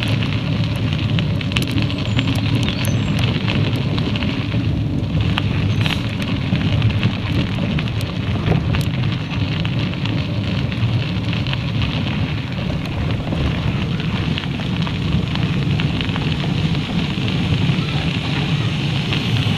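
Steady wind rumble on a moving action camera's microphone at about 17 km/h, with crackle and scattered small ticks from tyres rolling over a gravel path.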